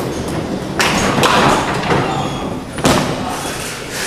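Duckpin bowling balls rolling on wooden lanes, with two sharp crashes of balls hitting pins, about a second in and again about three seconds in.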